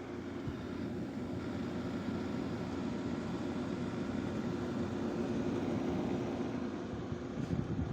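GE (Haier) 6,000 BTU wall air conditioner running: a steady rush of air from its fan with a low hum, slowly growing a little louder.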